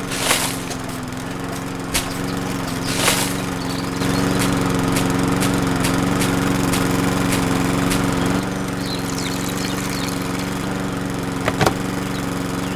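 Small motor of a miniature DIY juicer running steadily, turning the crusher drum through rubber-band belts, with light clicking and knocks as plums are fed into the hopper and crushed.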